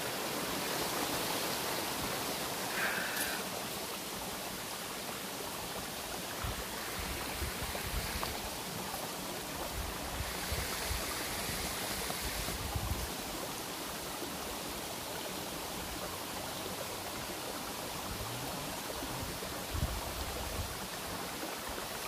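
Shallow, clear stream running and rippling over mossy rocks: a steady rush of water, with a few brief low bumps.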